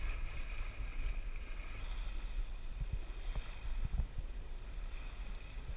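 Sailboat underway at sea: wind buffeting the microphone over the rush of water along the hull, with a faint steady hum.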